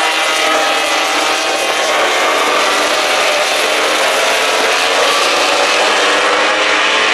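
Several MotoGP racing motorcycles going past at speed, their engines at high revs, with the pitch sliding up and down as the bikes pass.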